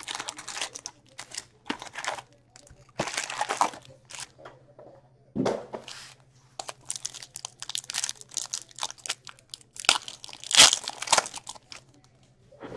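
Foil hockey card pack wrappers crinkling as a stack of packs is handled and slit open with a knife, in irregular spells of crackling with short pauses, the loudest near the end. A faint steady low hum runs underneath.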